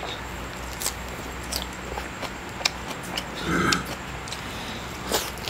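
Close-miked mouth sounds of eating lettuce leaves: scattered wet clicks and smacks as he chews, with a short low hummed voice sound about three and a half seconds in.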